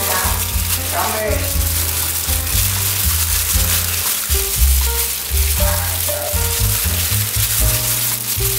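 Plastic wrap crinkling and crackling as it is squeezed and pressed around a roll of sticky rice by gloved hands, over background music with a changing bass line.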